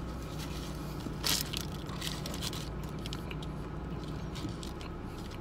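Steady low hum inside a car, with faint rustling and one short crinkling rustle about a second in.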